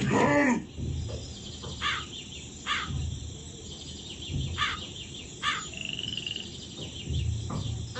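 Outdoor animal calls: short downward chirps repeating every second or so, with low pulsing calls underneath and a brief high tone about six seconds in.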